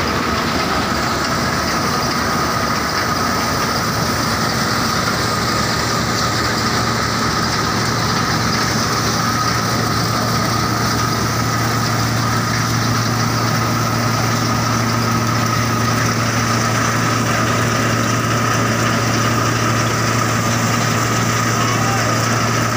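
Tractor-driven grain thresher running steadily off the tractor's PTO shaft: the tractor engine and the thresher's spinning drum and fans make a constant drone with a steady high whine.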